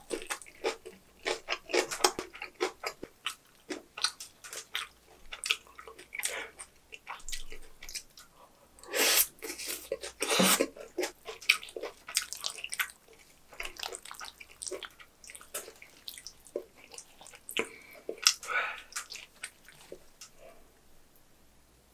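Close-up chewing of napa-cabbage kimchi with rice: irregular wet crunches, squishes and mouth smacks, loudest in a burst about nine to ten seconds in.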